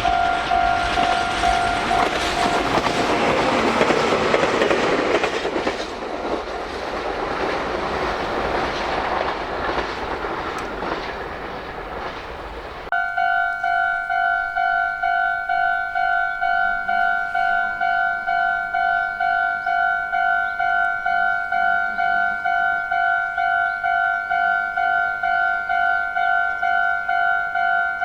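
A Japanese level-crossing warning bell rings while a Meitetsu train passes over the crossing with a loud rolling rumble and wheel clatter that drowns out the bell. About thirteen seconds in, the sound cuts abruptly to a crossing bell ringing alone in a steady two-tone 'kan-kan' about twice a second.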